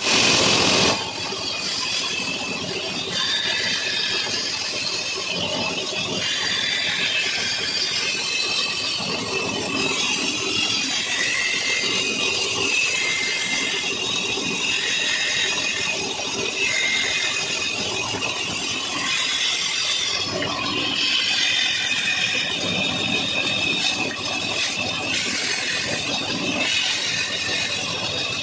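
Band saw running and cutting through small blocks of wood. A steady machine noise with a high whine whose pitch wavers as pieces are pushed through the blade, louder in the first second.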